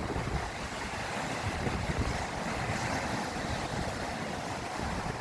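Baltic Sea surf washing onto a stony beach, a steady hiss of breaking water, with wind rumbling on the microphone.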